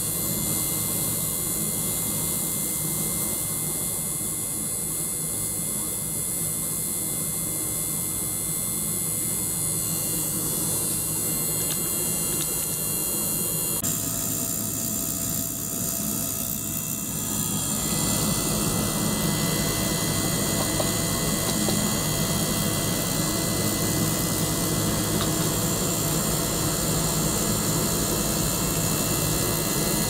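Small DC-motor liquid-circulation pump and ultrasonic cleaning tanks running together: a steady mechanical hum with a hiss. Its tone shifts about halfway through, and it grows a little louder soon after.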